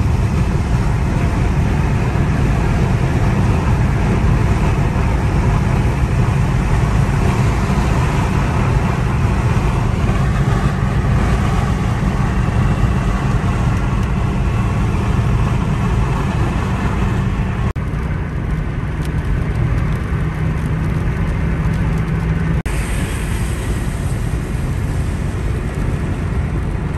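Steady engine and tyre noise heard from inside the cabin of a 2019 Toyota Corolla GLi 1.3 manual cruising on a wet motorway: a low drone with a hiss of tyres on wet road. The sound changes abruptly twice in the later part.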